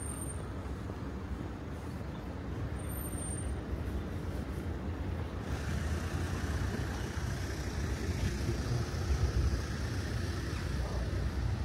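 Street traffic going by: a steady low rumble of engines and tyres, growing louder from about halfway through as a vehicle passes close.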